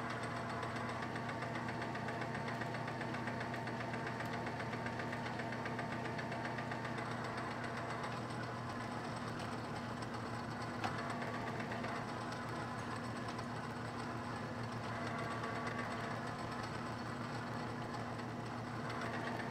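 Small metal lathe running steadily with its four-jaw chuck spinning, a single-point tool cutting an internal Acme thread in a bevel gear's bore with light passes. A single light tick about eleven seconds in.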